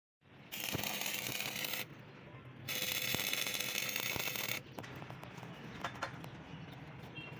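Electric arc welding on steel plate: two bursts of steady crackling hiss, the first about a second long and the second about two seconds. After that come scattered light metal clicks and taps.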